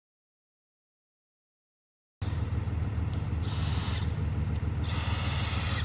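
Dead silence for about two seconds, then a delivery truck's engine idling with a steady low rumble, with two short hissing bursts of about a second each over it.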